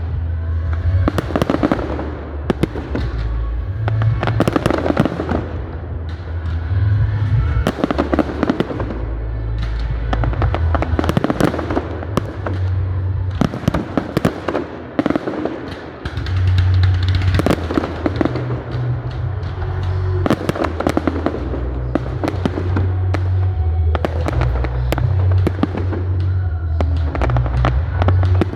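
Fireworks display: a steady run of bangs and crackling bursts over loud music with a deep bass line.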